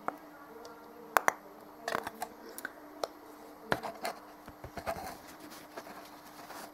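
Scattered small clicks and taps of hands handling a plastic acrylic-paint tube, setting it down on the table and picking up a foam sponge, over a faint steady hum.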